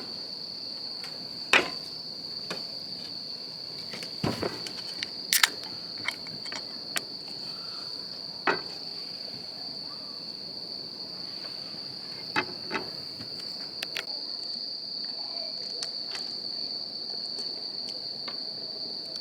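Insects trilling steadily on a single high note, with a dozen or so scattered sharp clicks and knocks over it.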